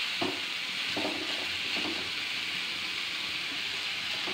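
Drumstick, cashew and grated-coconut thoran sizzling steadily in a pan as its remaining water cooks off. About three scraping stirs of a spatula come in the first two seconds.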